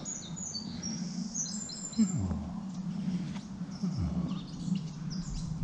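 Small birds chirping in quick short high notes, busiest in the first two seconds and again near the end, over a steady low hum outdoors, with a few low bumps about two seconds apart.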